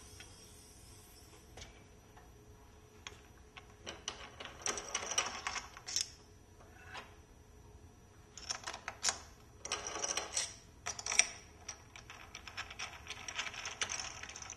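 Hands working parts on a metal machine fixture: bursts of rapid clicking and clattering, about four seconds in and again from about eight seconds in to the end.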